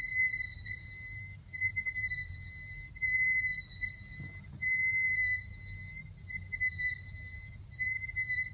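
Otari reel-to-reel tape recorder running, with a high-pitched squeal from inside the machine that swells and fades about every second and a half over a low motor rumble. The squeal is an unwanted mechanical noise from the running transport.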